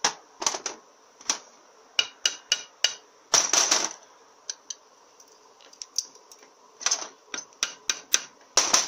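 Light, irregular metal-on-metal taps as a split roll pin is tapped into a Powerglide valve body to retain a valve spring, with a quick flurry of taps about three and a half seconds in.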